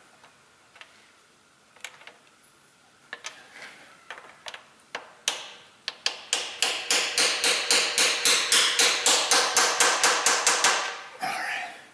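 Hammer tapping on a socket to drive a new filter seal up into a 4L60E automatic transmission case. A few scattered light taps come first, then about halfway through a quick, even run of about five taps a second lasts some five seconds and stops shortly before the end.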